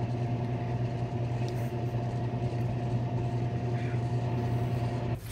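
Microwave oven running: a steady, even hum with a cooking load inside.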